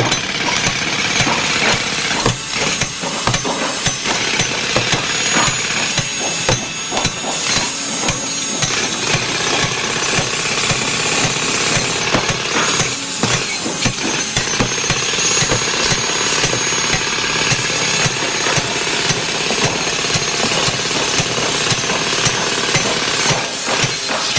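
Heavy earthmoving machinery at work: engine noise with rapid, irregular hammering and banging impacts throughout.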